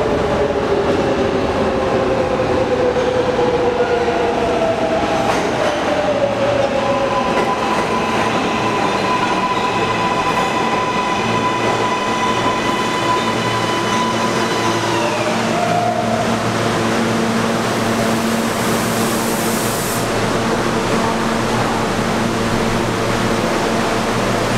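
A New York City subway train pulls into the station. Its electric motor whine falls in pitch as it slows, and several steady high tones end in a glide about 15 seconds in as it comes to a stop. A short hiss of air follows, then the steady hum of the train standing at the platform.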